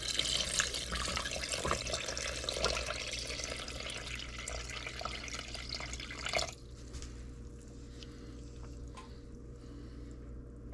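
Water running into a pot over beef tongues for about six and a half seconds, then stopping abruptly, followed by a few faint drips.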